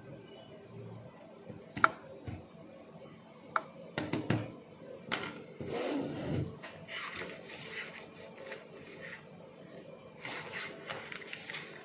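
Newspapers being handled and leafed through: paper rustling with a few sharp clicks and knocks in the first half, over a faint steady hum.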